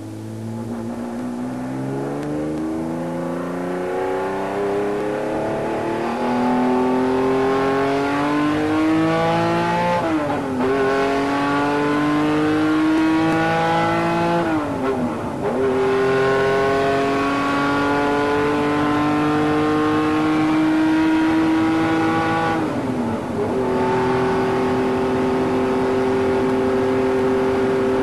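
Car engine accelerating up through the gears: its pitch climbs steadily and drops sharply at each of three upshifts, about a third, halfway and four-fifths of the way through, then holds steady near the end.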